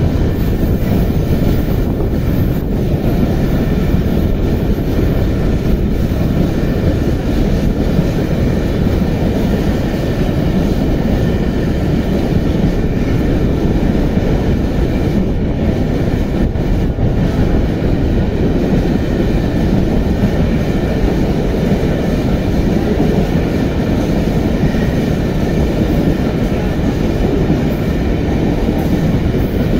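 Freight train of empty furnace-oil tank wagons rolling past, a steady loud rumble of wagon wheels on the rails.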